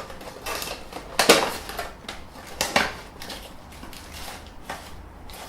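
Packaging handled as an action camera's box is unpacked: irregular crinkling and rustling of plastic and paper with light knocks, loudest about a second and a quarter in and again near three seconds.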